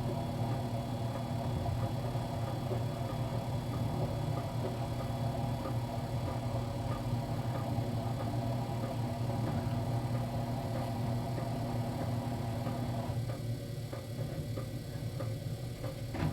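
GE LSGE09E09M washer-dryer running a gentle wool wash cycle: a steady motor hum with faint light ticks from the load turning in the drum.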